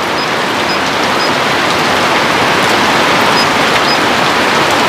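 Heavy rain falling, a steady dense hiss close on the microphone, growing slightly louder. A few faint, short, high-pitched beeps sound over it.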